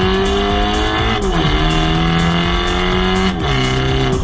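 BMW G20 330i's 2.0-litre turbocharged four-cylinder heard at the tailpipe through a de-catted Armytrix exhaust as the car accelerates: the note climbs steadily, drops sharply at an upshift about a second in, climbs again, and drops at a second upshift near the end.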